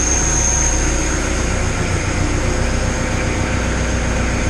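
Kubota BX23S tractor's three-cylinder diesel engine running steadily as the backhoe is worked, with a thin high whine that fades out about two seconds in.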